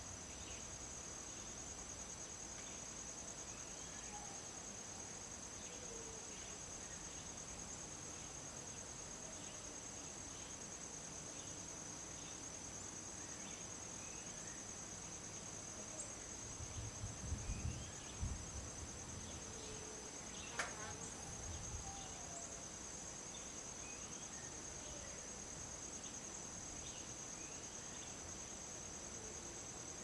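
Steady high-pitched insect chorus trilling without a break, with faint short bird chirps scattered through it. A few low thumps come a little over halfway through, followed by a single sharp click.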